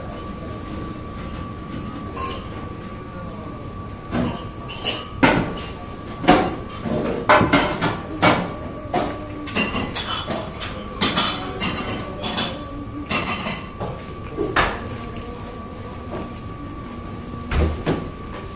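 Irregular sharp knocks and clatter of objects being handled close to the microphone, busiest from about four seconds in to fifteen seconds, over a steady high-pitched hum.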